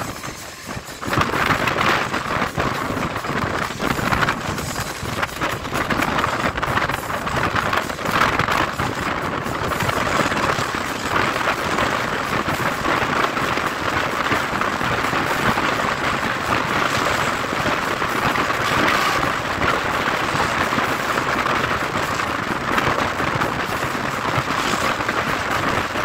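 Passenger train running at speed, heard from an open carriage window: a steady rush of rumbling, clattering wheel and carriage noise that picks up about a second in.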